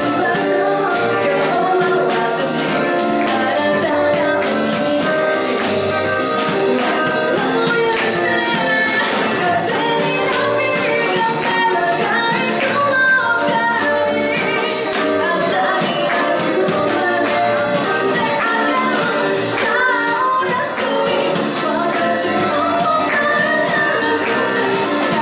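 A woman singing lead live into a microphone over a band, with percussion ticking through the music.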